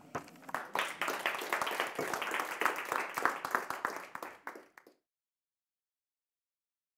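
Audience applauding with many overlapping hand claps, dying away after about five seconds and cutting to dead silence.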